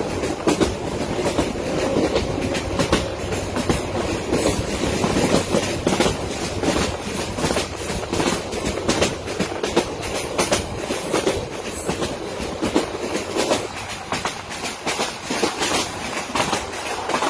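Passenger train rolling past at speed, its wheels clattering over rail joints in a rapid, irregular clickety-clack over a steady rumble.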